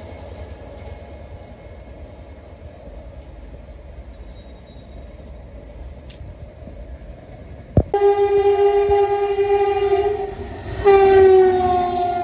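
A distant train rumbles low, then about eight seconds in an express locomotive's two-tone horn sounds in two long blasts, the second dropping in pitch as the train runs through the station at speed.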